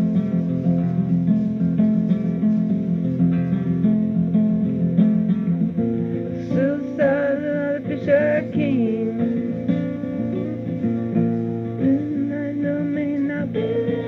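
Music: an acoustic guitar strumming and picking a steady chord pattern. About six seconds in, a wavering higher melody line joins for a few seconds, and the chords change again near the end.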